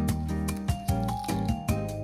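Upbeat background music with a steady beat, about four drum hits a second under sustained pitched notes.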